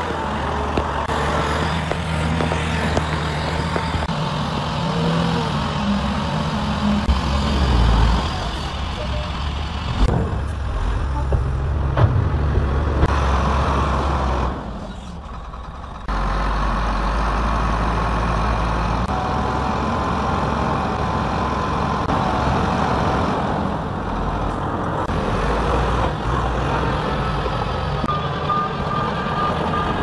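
Heavy diesel engines of a Shantui crawler bulldozer and dump trucks running under load. The sound changes abruptly about halfway through, where one machine's sound gives way to another's.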